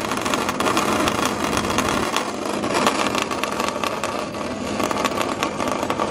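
Bandsaw cutting through a sheet of two-way mirrored acrylic: a steady motor hum under the continuous noise of the blade working through the plastic.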